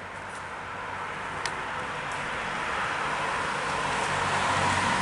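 A car approaching on a wet street, its tyre and engine noise a steady hiss that grows steadily louder.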